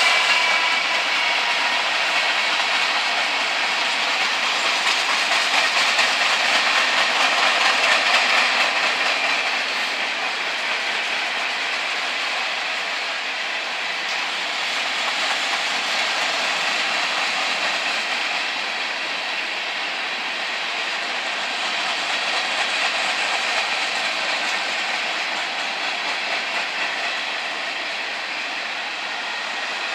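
BNSF manifest freight train rolling past close by, its covered hopper cars' steel wheels clattering steadily over the rail joints. It is a little louder for the first nine seconds or so.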